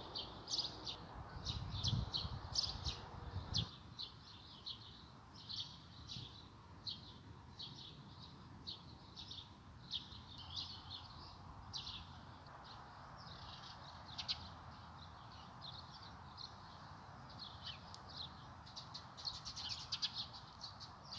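Small songbirds chirping and twittering, many short high calls following one another quickly and overlapping. A faint low rumble underlies the first few seconds.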